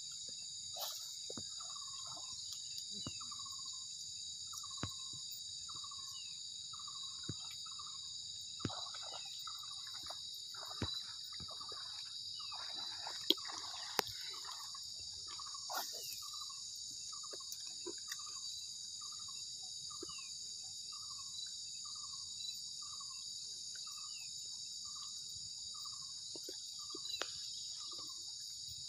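Steady high-pitched chorus of insects droning over the water, with an animal repeating a short falling call, about once a second at first and faster in the second half. A few scattered clicks and a brief rustle midway.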